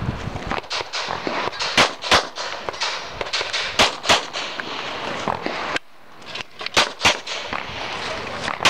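Pistol fired rapidly at targets, the loudest shots coming in quick pairs about a third of a second apart, several pairs in a row, with fainter cracks in between.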